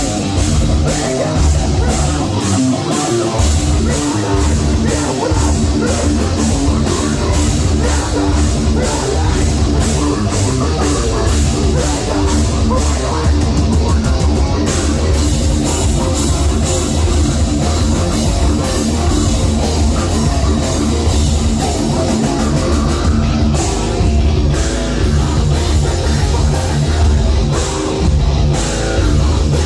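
Live heavy metal band playing loud, with distorted guitars, heavy bass and rapid, dense drumming.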